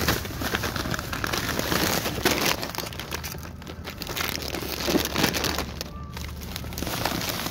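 Plastic Cheetos snack bag crinkling and rustling as a hand digs into it and handles it, over a steady low rumble from the truck.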